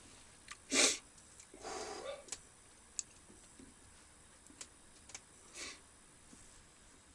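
A person eating: a few short breathy sniffs and slurps, with several light clicks between them.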